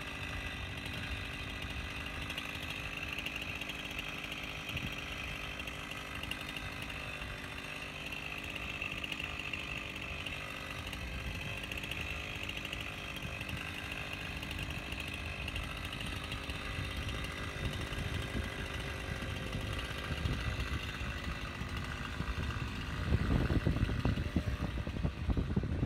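Stihl chainsaw idling steadily while held ready, not cutting. From about 23 seconds a louder, rougher low rumble joins in as the saw is lifted toward the limb.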